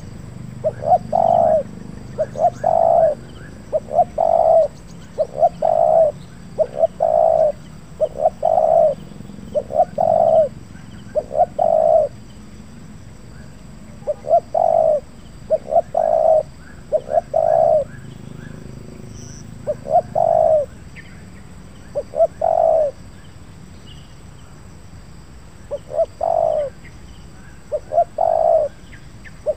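Spotted dove cooing over and over, the call of a trained decoy dove on the ground. Each phrase is a few short stuttered notes followed by a fuller coo, repeated about every one to two seconds with a few brief pauses.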